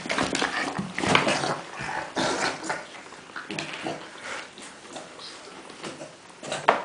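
A French bulldog making pig-like grunting and snorting noises in irregular short bursts. The bursts are louder in the first few seconds and quieter after, with one sharp, loud one near the end.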